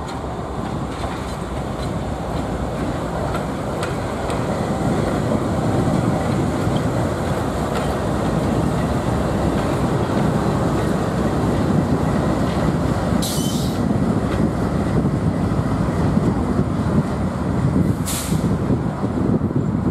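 CN road diesel locomotives, led by GE C40-8M No. 2445, rumbling steadily as they move slowly through the yard to couple to a train. Two short bursts of air hiss come about two-thirds of the way in and again near the end.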